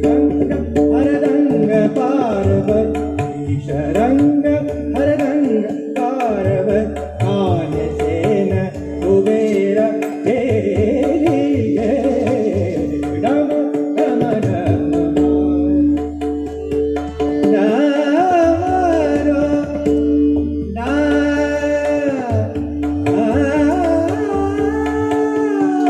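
A man singing an Indian classical-style devotional song to Shiva, with wavering, ornamented melodic lines, over a steady drone and tabla accompaniment.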